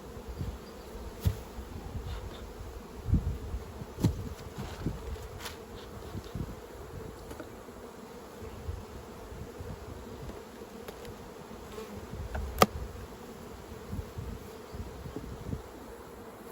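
Honey bees buzzing in a steady hum around an opened hive, with scattered low knocks and a few sharp clicks. One click about three quarters of the way through is the loudest.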